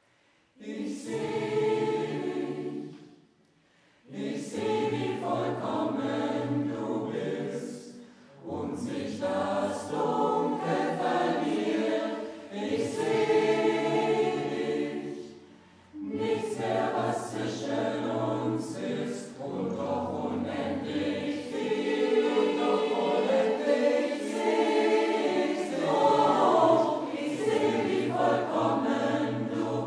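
Mixed amateur choir singing a cappella in several parts, in phrases with brief pauses between them.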